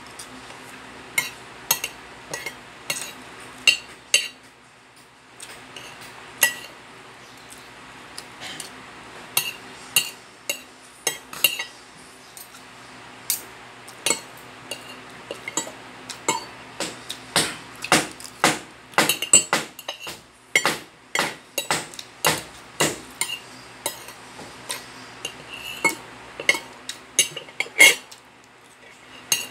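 Spoon and fork clinking and scraping against a plate while eating, a long run of short sharp clicks that come thickest about two-thirds of the way through.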